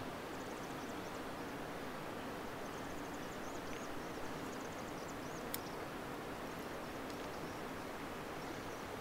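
Steady outdoor background hiss with faint, high, short chirps between about three and seven seconds in, and a single sharp click about five and a half seconds in.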